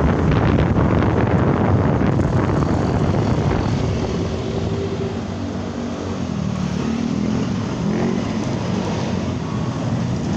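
Street traffic: vehicle engines running close by with wind rumbling on the microphone, heaviest for the first four seconds and then easing off.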